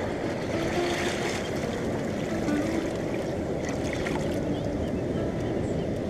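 Pacific surf rushing over a rocky shore and tide pools: a steady low rush of water, with a brighter wash about a second in.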